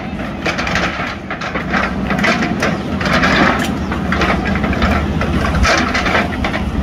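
JCB 3DX backhoe loader's diesel engine running steadily while its backhoe bucket digs and drags through soil and stones, with gritty scraping that comes and goes every second or so.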